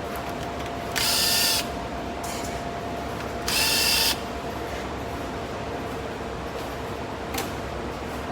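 Power tool whirring in two short bursts as 10 mm valve cover bolts are spun out, over a steady background hum; a single click near the end.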